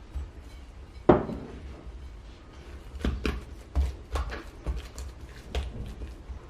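Handling of the oiled bread dough and its mixing bowl: a sharp knock about a second in, then a run of lighter, irregular knocks and taps.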